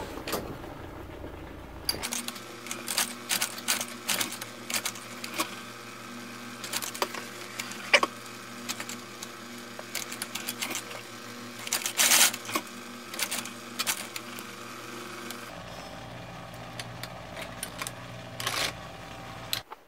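Industrial leather sewing machine stitching through thick vegetable-tanned leather: a steady hum with irregular clicks and short clattering runs as the needle drives stitches.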